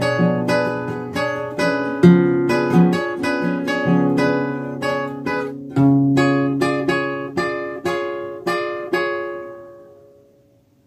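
Nylon-string flamenco guitar playing a rumba accompaniment of struck chords, about two a second. The last chord, about nine seconds in, rings on and fades away.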